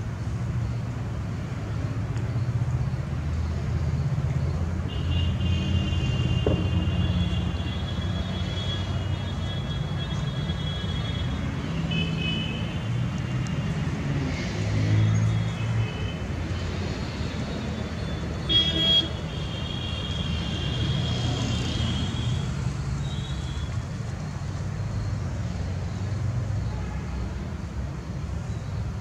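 Steady rumble of road traffic, with long drawn-out vehicle horn blasts sounding twice, in the first third and again past the middle. A brief sharp click comes just before the second horn.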